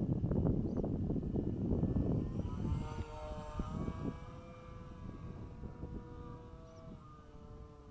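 Electric RC model plane's motor and propeller whining in flight, the pitch wavering a little and the sound fading as the plane moves away. Wind buffets the microphone during the first couple of seconds.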